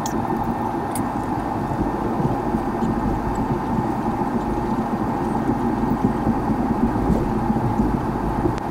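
Jet airliner's turbofan engines and rolling airframe heard from inside the passenger cabin: a steady hum with a low rumble as the plane moves along the ground.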